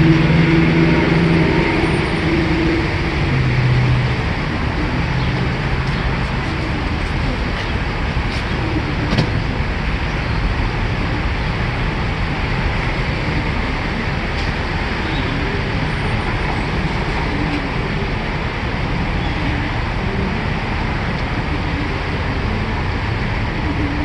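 Steady road noise of a moving motor vehicle, with a low engine hum in the first few seconds.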